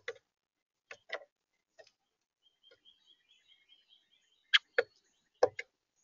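Eastern bluebird pecking at seed and mealworms in a feeder tray: scattered sharp taps of its bill on the tray, the loudest coming in two quick pairs in the last second and a half. A faint, high bird twitter runs in the middle.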